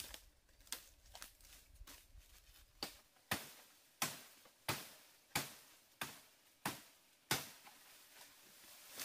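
A run of sharp, evenly spaced blows, about eight strikes two-thirds of a second apart, after a few seconds of lighter taps and clicks.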